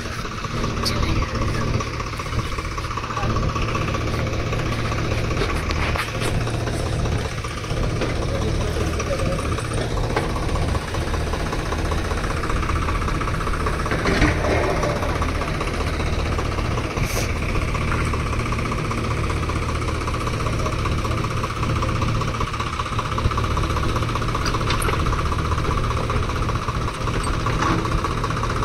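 Diesel engine idling steadily, with one sharp knock about halfway through.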